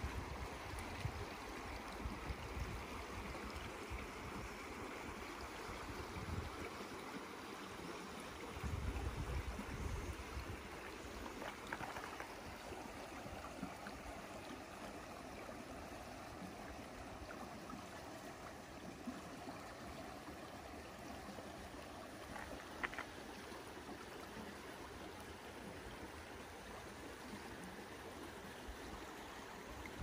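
Shallow stream running steadily over rocks, with a few low rumbles, the loudest about nine seconds in.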